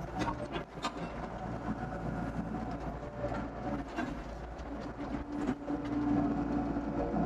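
Doosan DX55 mini excavator working, its diesel engine droning steadily with scattered clanks and knocks. The engine note strengthens about five seconds in.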